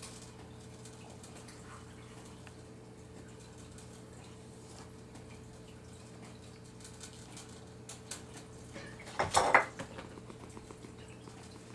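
Raccoon eating dry cat food from a bowl: scattered faint clicks of kibble and teeth against the bowl, then a brief louder clatter at the bowl about nine seconds in. A steady low hum runs underneath.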